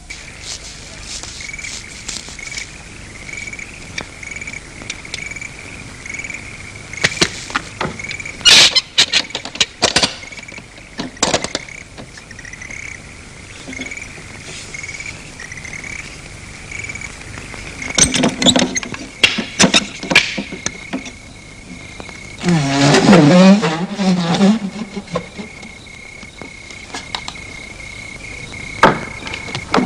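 Crickets chirping steadily, a high chirp repeating about twice a second. Scattered sharp knocks and clicks come through it, and a drawn-out wavering creak sounds about three-quarters of the way through.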